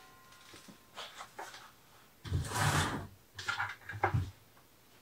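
Empty plastic food-storage buckets with screw-on lids being picked up and handled: a few soft hollow knocks and scrapes, with a longer, louder scrape about halfway through.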